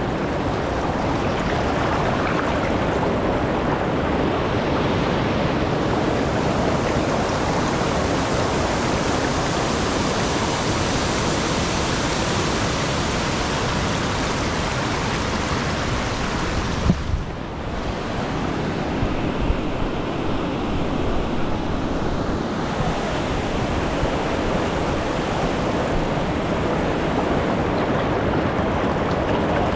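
Steady rushing of river water over rock ledges and rapids. About halfway through there is a single knock and a momentary dip in the sound.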